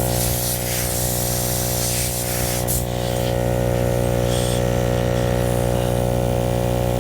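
Small electric air compressor running steadily with a hiss of air, inflating a tire that has just been plugged after a puncture.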